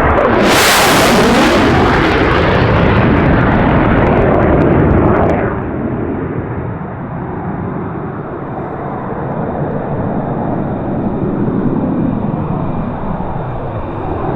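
A departing military aircraft's engines at high power as it passes close by, loudest for the first five seconds, then dropping somewhat but continuing as it moves away.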